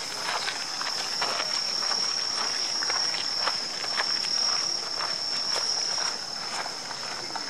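Footsteps crunching on a gravel path at walking pace, about two steps a second, under a steady high-pitched drone of insects.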